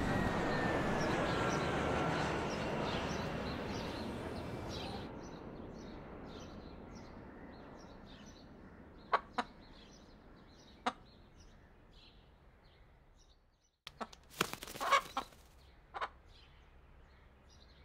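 Street traffic noise fading out over the first few seconds. Then a rooster gives a few short, sharp clucks, scattered at first and loudest in a cluster near the end.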